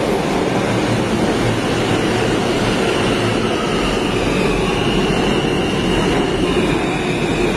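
New York City subway train running into an underground station alongside the platform, a steady loud rumble of wheels on rails. A thin high squeal joins about four seconds in.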